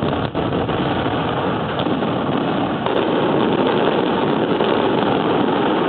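Fireworks barrage: a dense, continuous rumble of crackling bursts, getting louder about three seconds in.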